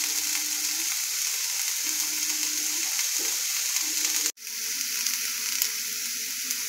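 Pineapple chunks and sugar sizzling in a hot nonstick frying pan as the sugar caramelizes: a steady hiss that breaks off for an instant about four seconds in.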